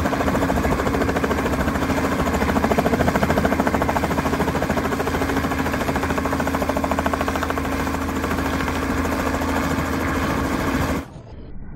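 Light two-bladed helicopter hovering low overhead: a steady engine and rotor sound with a fast, even rotor chop. About eleven seconds in it cuts off sharply to a much fainter, muffled sound.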